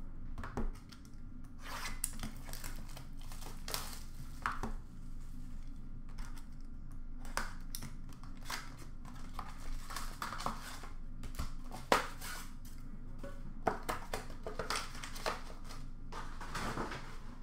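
Hockey trading cards and their packaging being handled on a countertop: scattered rustling and crinkling with light clicks and taps as cards are sorted and set down.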